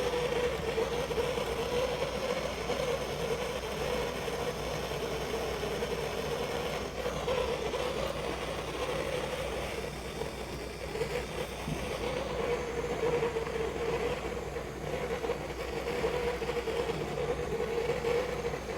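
Handheld gas blowtorch flame burning steadily, heating a copper pipe fitting for soldering. It makes a constant rushing noise with a steady hum underneath.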